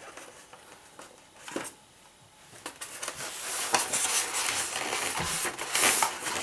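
Hands rustling and scraping in a moulded polystyrene packing tray while lifting a model train coach out, with a light click about a second and a half in and a busier run of rustles and small knocks over the second half.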